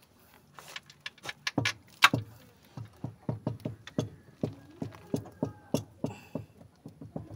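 A rapid run of sharp clicks and knocks, sparse at first and then about three or four a second.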